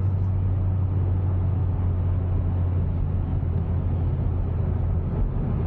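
Hyundai Veloster N heard from inside the cabin while driving: a steady low engine drone over even road and tyre noise, with no revving.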